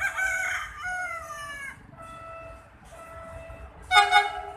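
Rooster crowing, one long call that falls in pitch, over the first two seconds. About four seconds in comes a short, loud blast that is the loudest sound here, with faint steady tones underneath.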